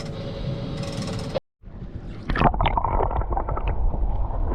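Water splashing and gurgling at the side of a boat, with wind rumble on the microphone; the sound drops out completely for a moment about a second and a half in, then comes back louder with sharp splashes.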